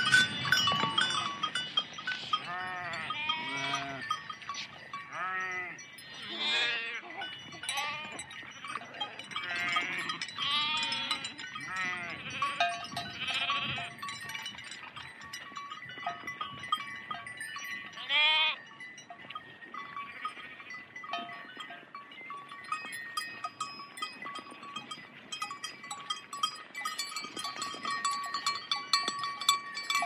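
A large herd of sheep walking through water: many overlapping bleats through the first half and one loud bleat a little past the middle, over steady ringing of bells and the splashing and clatter of hooves, which take over as the bleating thins out in the second half.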